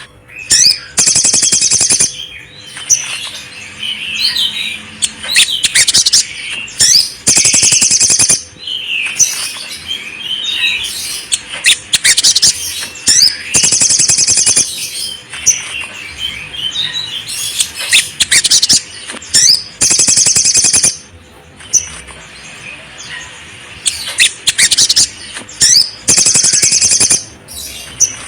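Pet songbirds singing: loud, rapid, high trills of a second or two that keep returning every few seconds, with softer chirps and warbling between them.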